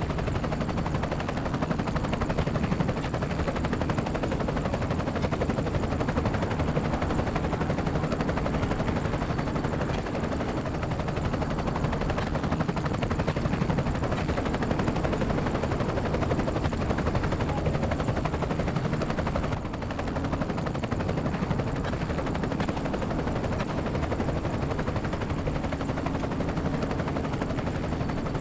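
Helicopter in flight, its rotor chop and engine running steadily, sped up to double speed so the chop comes as a fast, even rattle with a faint high whine above it.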